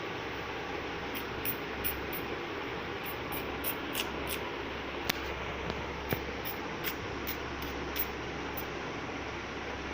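A dog moving about in a small kennel: irregular light clicks and taps, roughly two a second, over a steady background hiss.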